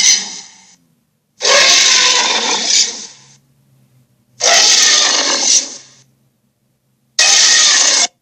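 Electronic dragon toy playing its roar sound effect again and again: one roar fading out at the start, then three more, each about a second and a half long with short silent gaps between them. The last one is shorter and cuts off suddenly.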